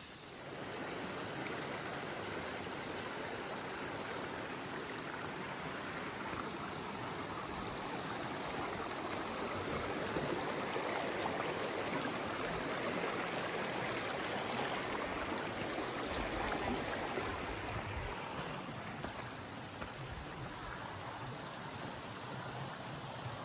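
Stream water flowing and rushing over the riverbed in a steady wash of noise, swelling a little midway.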